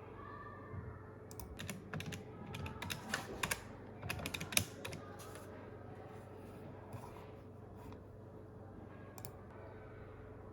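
Typing on a computer keyboard: quick runs of keystrokes in the first half, then only a few scattered clicks, over a faint steady hum.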